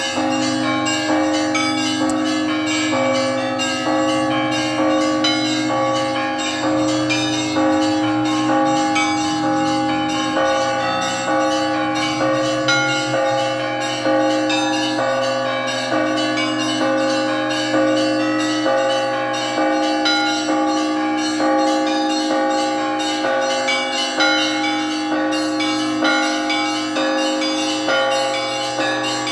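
Russian Orthodox church bells being rung: many bells of different pitches struck in a rapid, continuous rhythm, with the deeper bells ringing on underneath.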